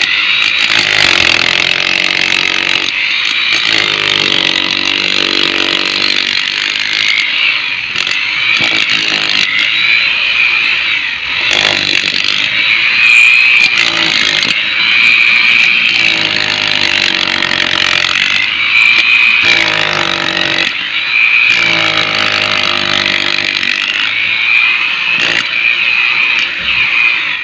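A 7 kg corded electric demolition hammer, also called a breaker or LT hammer, driving a chisel bit into a brick wall. It runs loud and continuous, breaking out brick and mortar to open a hole.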